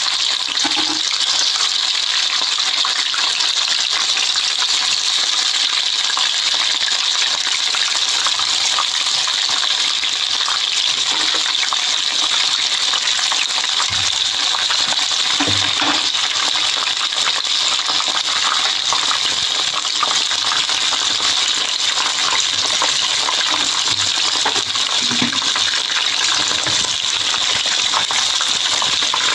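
Chicken necks deep-frying in hot oil in a pan: a loud, steady sizzle with fine crackling throughout.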